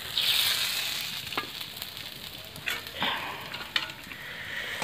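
Rice-flour batter for pani pitha sizzling in hot oil in a tawa. The hiss is strongest at first and then settles, with a few light clicks.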